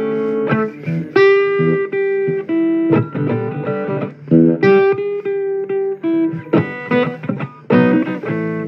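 Blues guitar playing plucked chords and held single notes, some of them bent, with no singing in this stretch.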